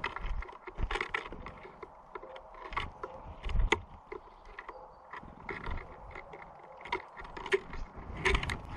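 Small birds such as great tits and blue tits landing, hopping and pecking at seed on a bird feeder: irregular taps, knocks and scrapes, a few sharper knocks standing out.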